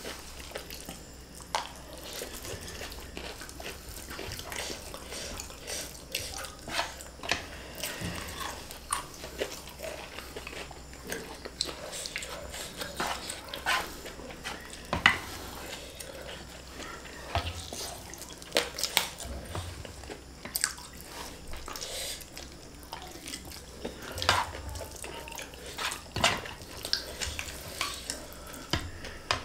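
Close-miked eating sounds: wet chewing and smacking of fried flat rice noodles, with scattered short, irregular clicks of plastic spoons against a metal tray.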